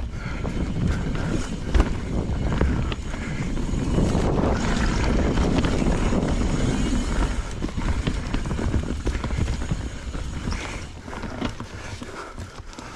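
Knolly mountain bike rolling fast down a dirt singletrack: tyre noise on the dirt and roots, with scattered knocks and rattles from the bike, and wind on the microphone. It is loudest in the middle.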